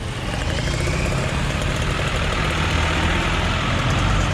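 Motor vehicle engines idling, a steady low rumble.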